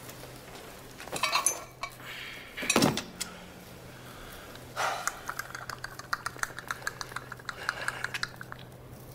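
Small hard objects clattering and clinking on a tabletop: a clatter about a second in, a louder knock near three seconds, then a run of quick light clicks for about three and a half seconds, over a low steady hum.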